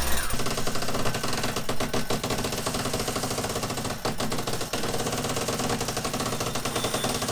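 Halyard winch hauling in the mainsail halyard, its ratchet clicking in a fast, steady clatter as the sail is hoisted.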